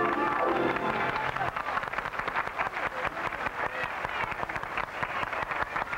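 Applause and hand clapping. A band's closing music dies away under it about a second and a half in.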